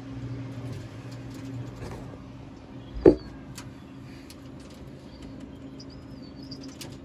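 Hands working wires and connectors inside a vending machine's metal cabinet: small clicks and rustles, with one louder knock about three seconds in, over a steady low hum.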